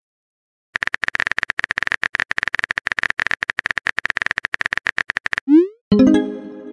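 Texting-app sound effects: rapid on-screen keyboard typing clicks for about four and a half seconds, then a short upward swoop and a fading chime as a new text message appears.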